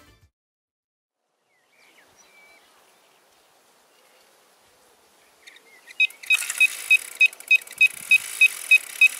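Electronic carp bite alarm on a rod pod beeping rapidly and evenly, about three beeps a second over a steady hiss, starting about six seconds in: the continuous tone of a run, a fish taking line.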